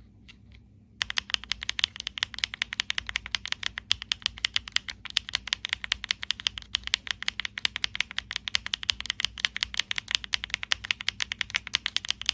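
Rapid typing on a mechanical keyboard fitted with HMX Sunset Gleam pre-lubed linear switches: a fast, dense stream of keystroke clacks that starts about a second in.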